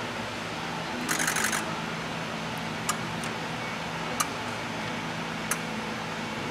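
Ford 6.0 Power Stroke injector coil buzzing briefly about a second in during a buzz test, a short rattling buzz, followed by a few sharp single clicks over a steady low shop hum.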